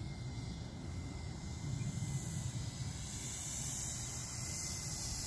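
Electric radio-controlled P-38 Lightning model's twin motors and propellers on a low approach pass, a faint thin whine with a rising whoosh that grows louder over the second half as the plane closes in. Wind rumbles on the microphone underneath.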